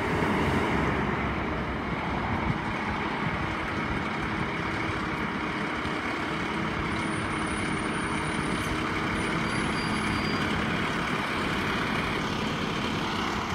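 Volvo fire engine's diesel engine running as the truck drives slowly forward out of the station bay; a steady engine hum with no siren.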